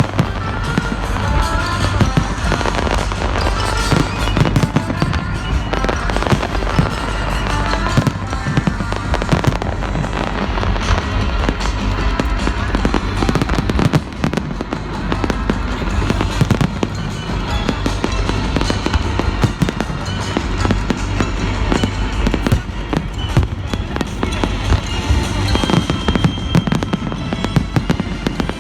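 Fireworks going off in a dense, continuous run of bangs and crackles, with music playing along.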